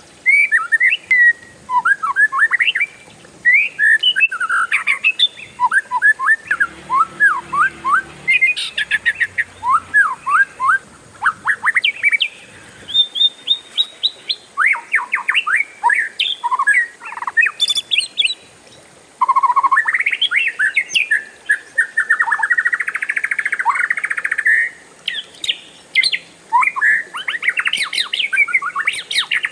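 Oriental magpie-robin (kacer) singing a long, varied song: fast runs of gliding notes and whistles, phrase after phrase with only brief pauses.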